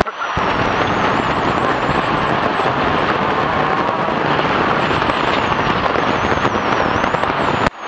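Off-road desert race car driving fast over a rough dirt track, heard from onboard: a loud, steady mix of engine and road noise. The sound dips sharply for a moment near the end.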